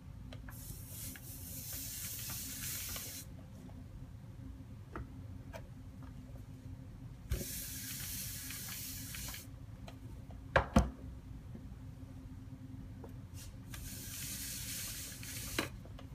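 Steam iron hissing against a damp rag in three spells of about two to three seconds each, steaming creases out of a leather sneaker. A little past the middle come two sharp knocks close together.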